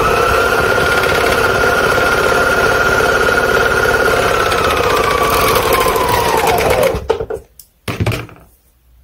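Juki MO-654DE serger running at speed, sewing through layers of sweater knit with a steady whine that falls as it slows and stops about seven seconds in. Two short knocks follow.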